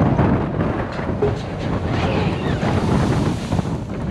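Wind rushing over the microphone together with the low rumble and clatter of a Matterhorn Bobsleds car running along its tubular steel track.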